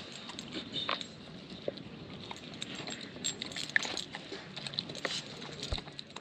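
A Nova Scotia duck tolling retriever eating chunks of rare steak from a plastic slow-feeder bowl: wet chewing and licking with scattered small clicks against the bowl.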